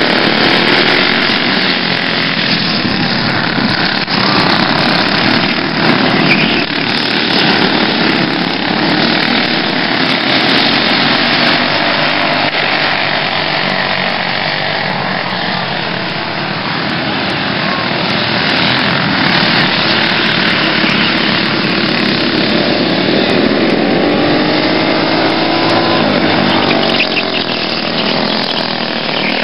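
Racing kart engines running at high revs with a buzzing note that sweeps up and down as the karts accelerate and lift off through the corners, with a clear rising sweep near the end.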